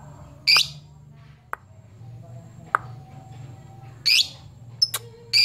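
Lovebird giving short, shrill calls, three in all, about half a second, four seconds and five and a half seconds in: calls meant to call out a rival fighter bird. A couple of sharp clicks fall between the calls, over a faint low hum.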